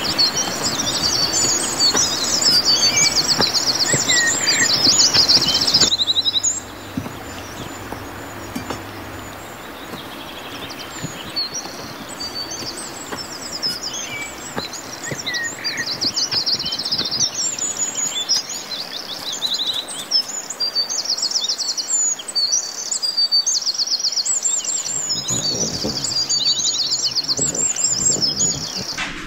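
Small birds chirping and trilling over and over, with a few seconds' lull after about six seconds, over a steady background hiss.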